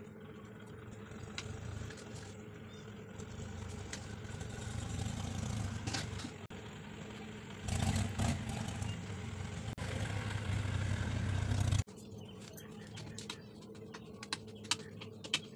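A steady low mechanical rumble grows louder, then cuts off sharply about twelve seconds in. Afterwards come light clicks and scrapes of a spoon against a ceramic plate as spice powders are mixed.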